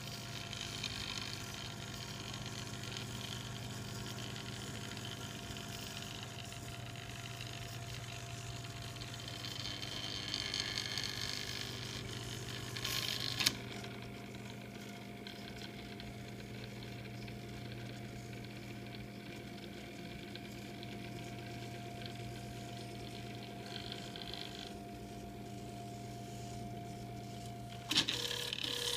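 Stepper motors of a desktop FDM 3D printer driving the print head and bed through a calibration print: a steady whine of several held tones over a low hum. The tones shift abruptly about halfway through and again near the end as the moves change.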